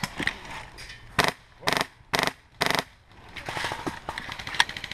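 HPA-powered airsoft RPK (a CYMA RPK with a Wolverine Inferno Gen 2 engine) firing four short full-auto bursts of rapid clicks from about a second in to near three seconds. Fainter rapid clicking follows.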